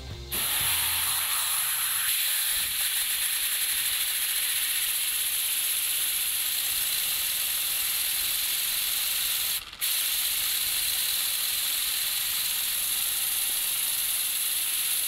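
Compressed air hissing steadily through a tiny LEGO double-action piston engine as the air drives it. The hiss drops out briefly just before ten seconds in, then comes back. So small an engine needs a lot of air pressure to run.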